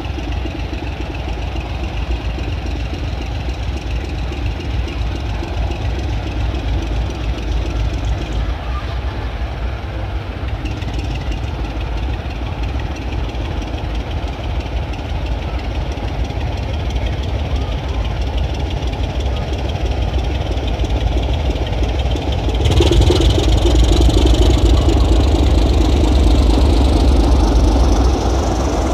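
British Rail Class 26 diesel locomotive 26 008, its Sulzer six-cylinder engine running while working a rake of empty coaching stock. The engine note becomes suddenly louder about 23 seconds in and eases back near the end.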